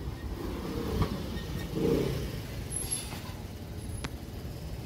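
A motor scooter rides past close by, its engine swelling loudest about two seconds in. A short sharp knock comes about a second in and another near the end.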